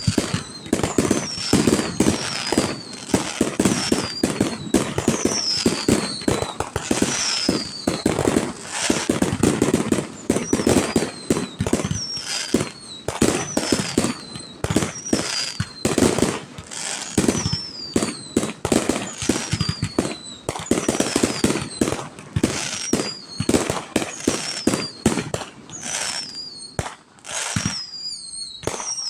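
Fireworks display: aerial shells bursting one after another in a dense barrage of booms and crackles, with high falling whistles recurring every second or two. The barrage thins briefly near the end.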